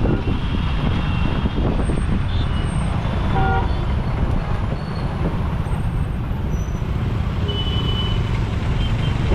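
Busy road traffic heard from a bicycle, under a heavy steady low rumble of road and wind noise. Vehicle horns toot several times, with one clear horn blast about three and a half seconds in.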